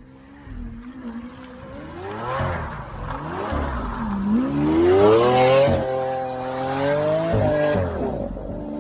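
Lamborghini V12 engine revving hard as the car accelerates on a snowy road. Its pitch wavers low at first, climbs steeply about four seconds in, holds high with two brief sharp drops, and falls away near the end.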